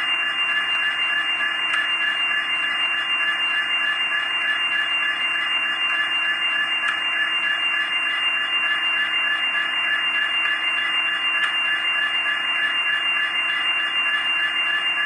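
ESU sound decoder in a Kato N scale MP36 model locomotive playing its diesel engine sound through a tiny speaker: a steady, tinny engine hum with a faint regular beat a few times a second and a thin high whine on top.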